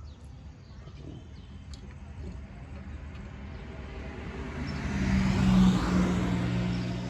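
A motor vehicle passing by: a low engine hum and road noise that build up, peak about five and a half seconds in, and then fade.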